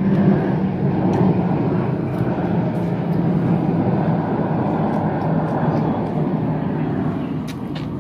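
A steady low engine rumble, easing off a little near the end.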